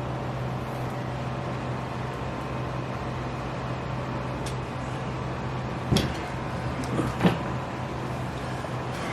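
Steady low hum of background noise, with a sharp click about six seconds in and two short knocks about a second later.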